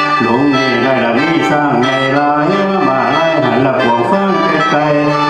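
Lao mor lam: a man sings a wavering, ornamented vocal line over a khaen, a bamboo free-reed mouth organ, which holds a steady drone chord.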